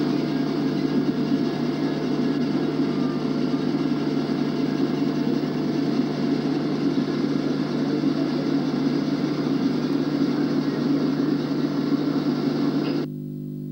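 Steady rumble of vehicle engines and traffic on an old cine-film soundtrack, with a constant low hum underneath and no distinct events.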